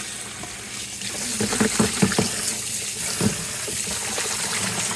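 Tap water running steadily into a sink where a flag is being washed and rinsed. A few brief, louder sounds stand out around the middle.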